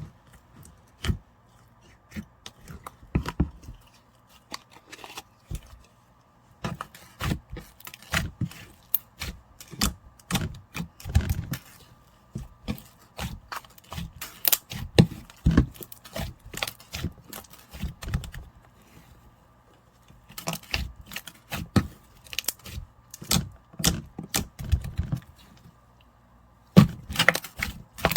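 White slime being handled, pressed and stretched by hand, giving bursts of crisp clicks and pops with a few short pauses.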